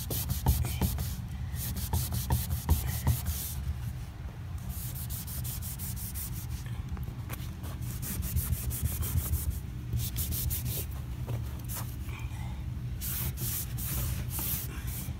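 Wet rag scrubbing along a painted baseboard, a rubbing swish in quick back-and-forth strokes, to wipe off a stain before painting.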